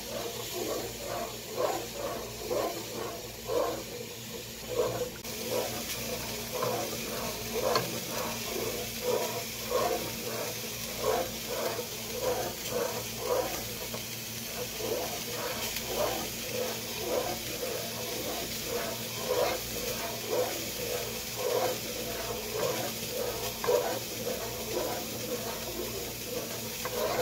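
Wooden spoon stirring a pot of coconut milk and milk: a rhythmic liquid swishing, roughly three strokes every two seconds, over a steady low hum.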